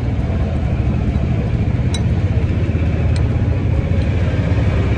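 Steady low rumble with two faint clicks, about two and three seconds in.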